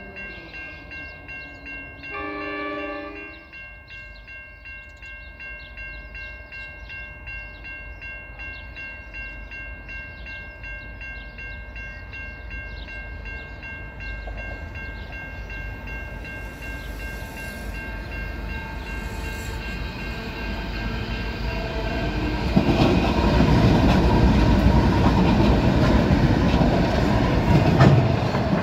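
Level crossing bells ring steadily throughout, and a train horn sounds briefly a couple of seconds in. An intermodal freight train's rumble builds from about halfway and turns loud for the last several seconds as the train passes over the crossing.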